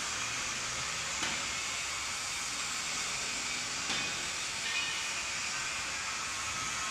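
Steady hiss, with a faint click about a second in and another near four seconds.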